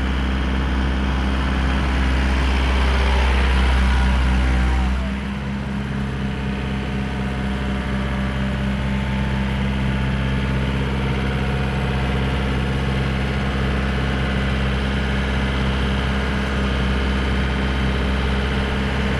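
Tractor engine running steadily, dropping from higher revs to a steady idle about five seconds in.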